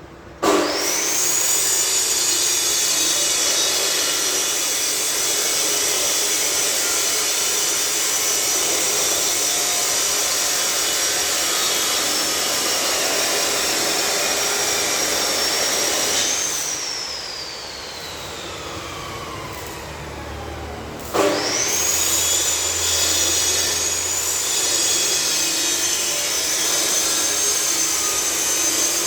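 Electric angle grinder switched on, spinning up to a steady high whine as it runs. It is switched off about 16 seconds in and winds down with a long falling whine, then is started again about 21 seconds in and runs steadily.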